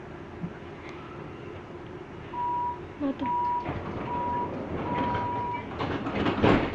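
Door-closing warning on an Athens Line 1 train standing at a station: four beeps at one steady pitch, the last one longest, then the sliding doors closing with a loud clattering bang near the end over the train's steady hum.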